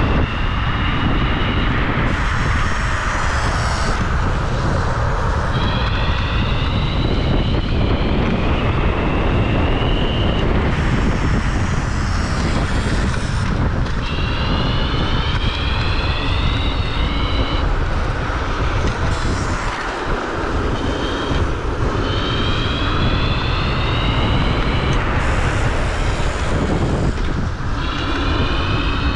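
Electric scooter at speed: the motor's high whine rises in pitch as it accelerates, breaks off and rises again every couple of seconds, over a steady rush of wind noise.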